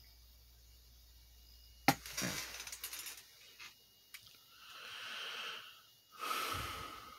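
Handling noises near the microphone: a sharp click about two seconds in, then rustling and a few scattered clicks, and two breathy swells near the end. Under them, the faint low hum of the switched-off Patton box fan coasting down fades out about three seconds in.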